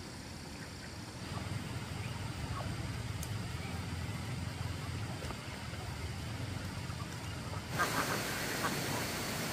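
Ducks quacking in short, scattered calls over a low steady rumble. Near the end a loud hiss comes in suddenly.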